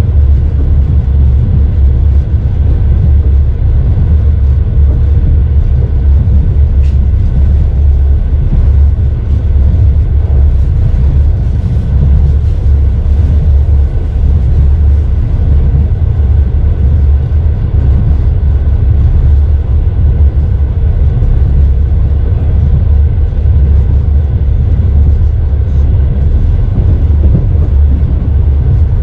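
Passenger train in motion: a loud, steady low rumble.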